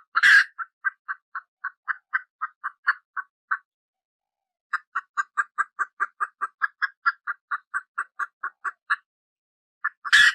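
Baby chick peeping: a fast run of short, even peeps, about four a second, that stops for about a second near the middle and then resumes. A louder, rougher burst comes just after the start and another at the end.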